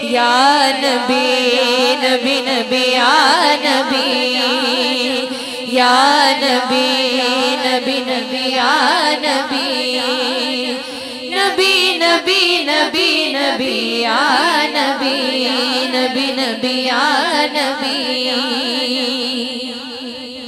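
Naat interlude: wordless, melismatic female singing with a wavering vibrato over a steady sustained drone. It fades down near the end.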